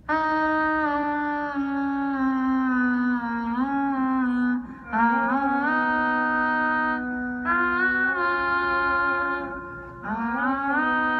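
Two people singing a duet into microphones in long, held notes that glide from one pitch to the next, broken by short pauses every few seconds.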